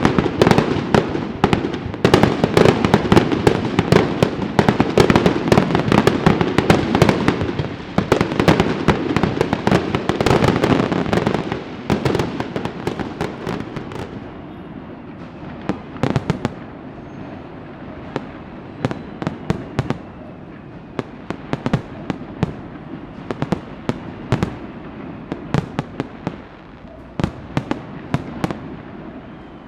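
Firecrackers going off: a dense, rapid string of cracks for about the first twelve seconds, then thinning out to scattered single pops.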